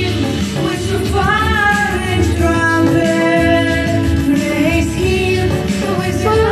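A woman singing a melody in long held notes over instrumental backing with a steady bass.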